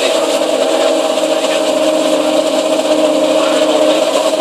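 Porsche Carrera GT's 5.7-litre V10 engine running steadily through its exhaust, heard close to the tailpipes with no revving.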